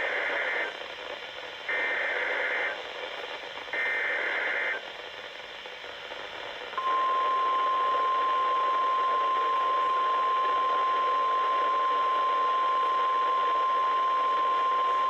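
Weather radio broadcast of an Emergency Alert System Required Weekly Test: three one-second bursts of the SAME digital data header, a warbling screech, each about a second apart, over radio hiss. After a short pause, a steady single-pitch warning alert tone starts about seven seconds in and holds.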